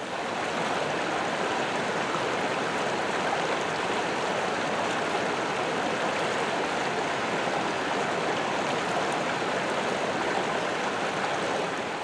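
Shallow river running over the stones of a ford: a steady rushing of water.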